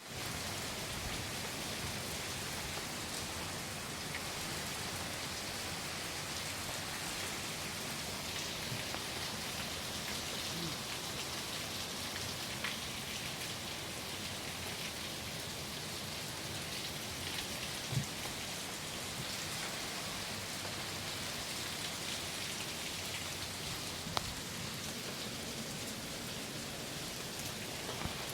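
Steady rain falling, an even hiss of drops throughout, with a few sharper single taps along the way.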